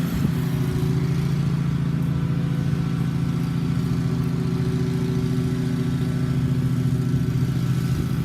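Engine sound effect from an RC truck's add-on sound system: a simulated motor hum holding one steady pitch with no revving.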